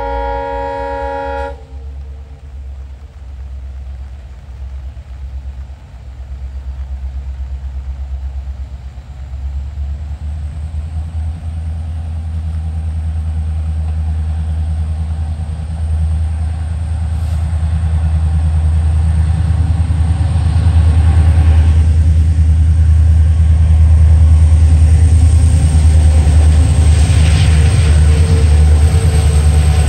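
A locomotive horn sounds for about a second and a half at the start. Then the deep, pulsing engine rumble of an EMD diesel locomotive hauling a heavy loaded goods train grows steadily louder.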